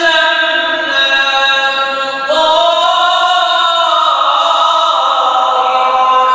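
Unaccompanied male voice singing an Islamic devotional chant in long, held, ornamented notes that step from one pitch to the next every second or so.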